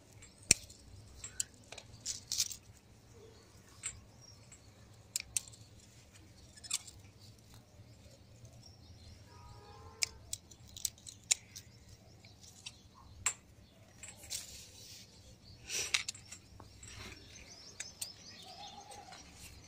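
Scissors snipping cherry tomatoes off the vine: a string of short, sharp clicks at irregular intervals.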